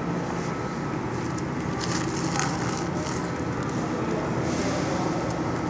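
Indoor bus-station hall ambience: a steady low hum, with scattered light rustles and clicks from the phone being handled and moved.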